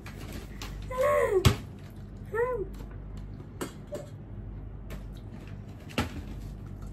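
Several sharp knocks and clicks of tableware being handled during a meal, the loudest about one and a half seconds in. Two short high-pitched vocal sounds, rising then falling, come about a second and two and a half seconds in.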